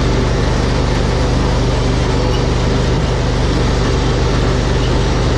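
Engine of a harvest machine running steadily at constant speed, a continuous low drone with a broad mechanical rush over it.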